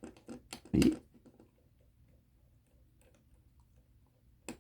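Small, irregular clicks and taps of watchmaker's tools and tiny parts on a Bunn Special pocket watch movement being taken apart, the loudest a knock about a second in and one more click near the end.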